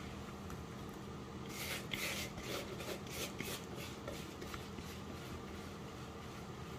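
Spatula scraping an oil and spice mix out of a plastic mixing bowl: a run of short scrapes starting about a second and a half in and lasting about two seconds, over a faint steady hum.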